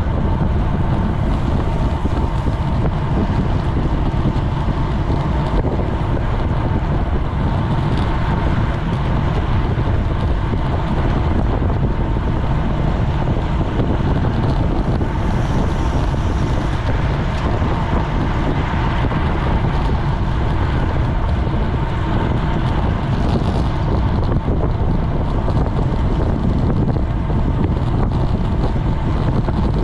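Wind buffeting a GoPro's microphone on a road bike at race speed: a steady low rumble with a hiss above it.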